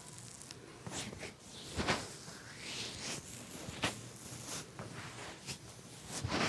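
Hands massaging a customer's head and body: rubbing and rustling on skin and hair, broken by a few sharp slaps about 2 s in, just before 4 s and near the end.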